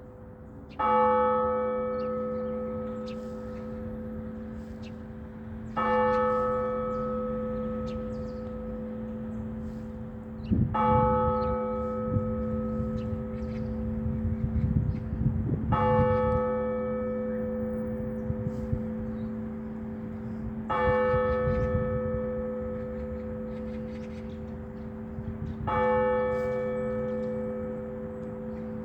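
A single large Orthodox church bell struck slowly, six strokes about five seconds apart, each one ringing on over a lingering low hum until the next. This measured single-bell ringing calls the faithful to the service (blagovest).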